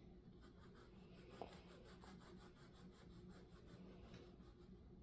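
Kinetic sand being scraped by hand: faint, rapid scratching at about four or five strokes a second, dying away near the end.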